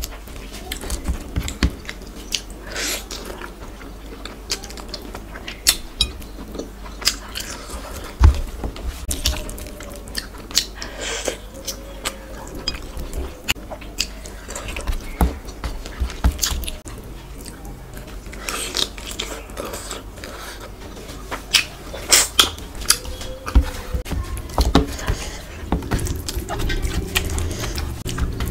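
Close-miked mouth sounds of eating soft rice khichuri and chicken by hand: irregular wet chewing, smacking and biting clicks throughout, with fingers mixing food in a steel tray between mouthfuls.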